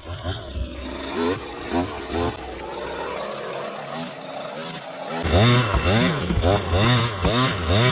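Power saw cutting wood, its motor pitch rising and falling in a rhythm about twice a second, louder from about five seconds in.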